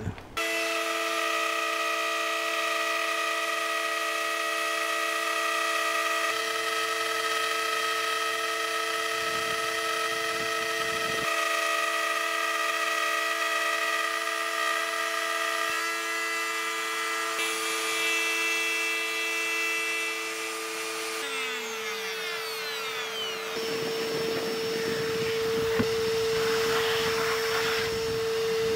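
Plunge router routing a mortise in African mahogany: a steady high motor whine over the hiss of the bit cutting. About three quarters of the way through the pitch slides down, and then the router runs on with a rougher, noisier cutting sound.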